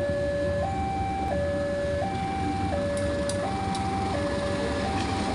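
Railway level-crossing alarm sounding a two-tone electronic warning, a higher and a lower note alternating about every 0.7 s, the signal that a train is crossing and the road is closed. Under it runs the low rumble of a diesel locomotive passing over the crossing, with a few faint clicks about three seconds in.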